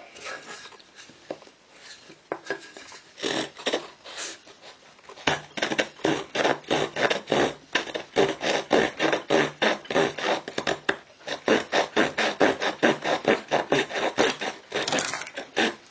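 Pocket-knife wood saw blade of a Victorinox Forester cutting into a piece of wood. A few separate strokes at first, then about five seconds in a steady back-and-forth rasping at about three or four strokes a second, which stops near the end.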